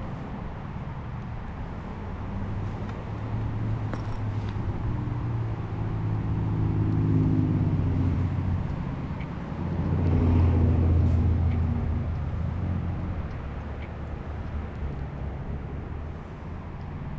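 Road traffic passing: two motor vehicles go by in turn, building and fading, the second and louder one about ten to eleven seconds in, over a steady background rush.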